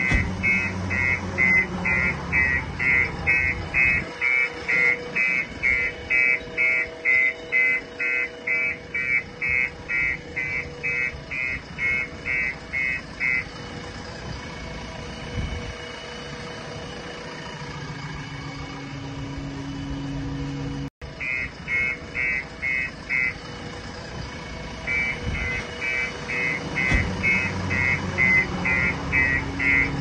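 JCB 3DX backhoe loader's warning beeper sounding rapid, even high-pitched beeps, about two or three a second, over its diesel engine running. The beeping stops about 13 seconds in and comes back twice later on.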